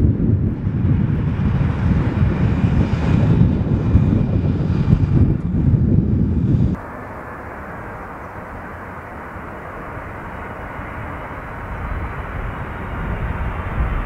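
Jet aircraft engines rumbling loudly. About seven seconds in the sound cuts abruptly to a quieter, steady engine noise that slowly grows louder again.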